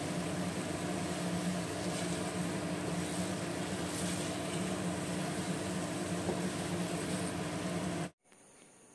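Steady electric hum and whir of a kitchen appliance's fan motor, which cuts off abruptly about a second before the end.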